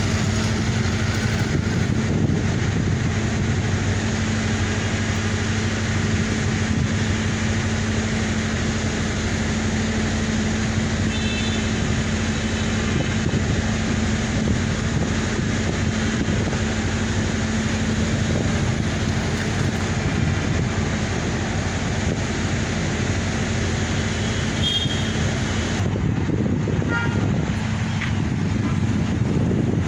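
Steady outdoor traffic noise with a constant low engine hum, and a few short high toots about a third of the way in and again near the end.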